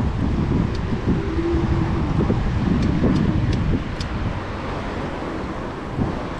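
Wind buffeting the microphone of a moving bicycle's camera, a steady low rumble, with road traffic behind it. A few faint, short high clicks come through now and then.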